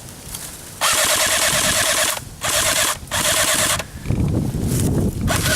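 Airsoft electric gun firing on full auto in several short bursts, its gearbox whirring and rattling fast; the first burst is the longest, at about a second and a half.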